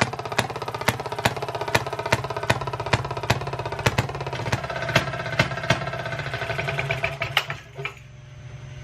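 Old Maytag two-stroke washing machine engine running hit-and-miss: loud firing pops spaced unevenly, roughly two a second, over a fast light ticking. It slows and stops near the end.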